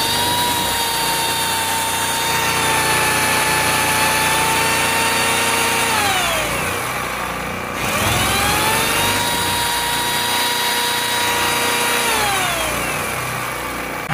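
Remington electric pole saw's motor and chain running at a steady whine for about six seconds, then winding down in pitch. It is triggered again about eight seconds in, spins up, runs for about four seconds and winds down again near the end. Underneath, the 98cc Kingcraft generator powering it runs steadily.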